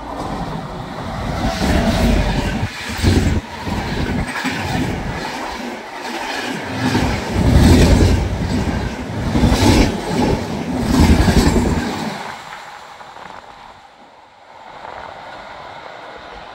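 Double-decker express train passing close at speed behind an electric locomotive: a heavy rumble with rhythmic clickety-clack of the coach wheels over rail joints. About twelve seconds in the sound falls away quickly as the train recedes.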